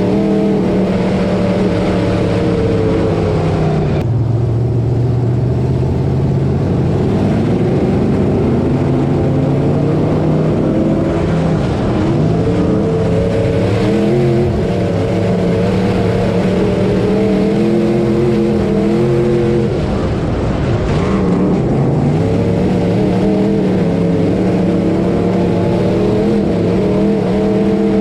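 Dirt-track hot mod race car's engine heard from inside its cockpit at racing speed. Its pitch falls off about four seconds in and again later, each time climbing back as the throttle comes back on.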